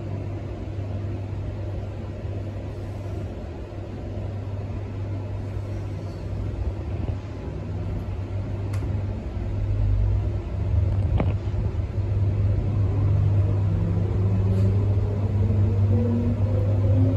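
Transperth A-series electric multiple-unit train heard from inside the carriage: a steady low hum while standing at the platform, then the train pulls away from about ten seconds in, with a whine of several tones rising steadily in pitch as it gathers speed. A couple of sharp clicks come shortly before it moves off.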